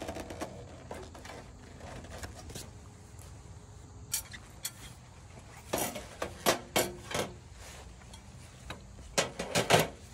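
Metallic clinks and knocks of copper half-round fascia brackets and a copper gutter being handled as the brackets are fitted onto the gutter: a couple of sharp clicks about four seconds in, then clusters of knocks around six to seven seconds in and again near the end.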